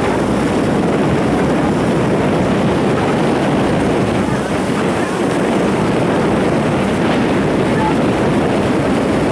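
Mercury outboard motor on a following launch, running steadily at speed, with wind on the microphone.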